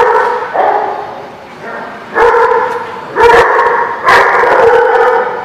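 Dogs barking during rough play-wrestling: about five loud, drawn-out barks in a row.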